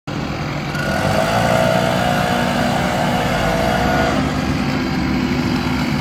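Grapple truck's engine running steadily under load, with a whine from its loader about a second in that stops about four seconds in.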